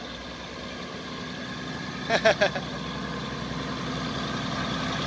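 State Railway of Thailand diesel railcar's engine running, growing steadily louder as the train gets under way from the platform.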